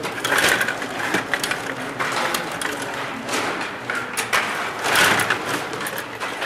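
Stiga Play Off rod-operated table hockey game in play: rapid, irregular clicking and clattering of the control rods being pushed, pulled and twisted, with plastic players and the puck knocking against each other and the boards. The clatter is busiest just after the start and again about five seconds in.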